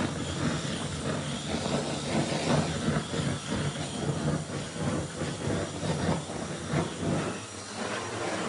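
Large handheld gas blowtorch running with a steady hissing flame as it scorches the meringue coating of a cake, the flame flickering as it plays over the surface. The hiss drops away about seven seconds in.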